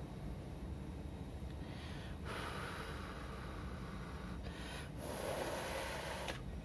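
A person breathing heavily close to the microphone: a long breath starting about two seconds in and a louder one about five seconds in, over a low steady hum.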